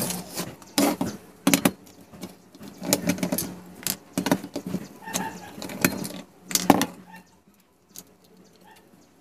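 Sharp clicks, knocks and clatter of a metal screwdriver and a plastic power-strip outlet being handled, unscrewed and set down on a wooden table, with a low steady hum underneath. The clatter dies down near the end.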